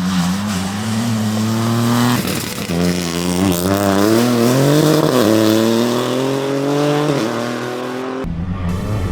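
Opel Corsa Rally4's turbocharged three-cylinder engine accelerating hard on a rally stage, its pitch climbing and dropping back at each of several quick upshifts. About eight seconds in, the sound cuts to another pass of the car.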